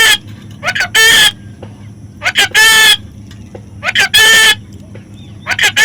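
A parrot calling loudly over and over, about every second and a half. Each call is a quick short note followed by a longer drawn-out squawk.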